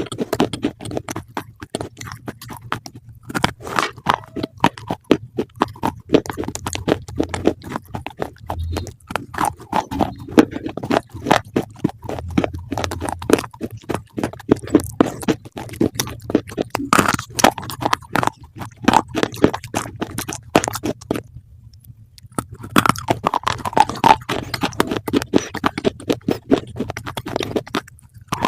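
Close-up chewing of crunchy food: loud, rapid, irregular crunches, with one short pause about three-quarters of the way through.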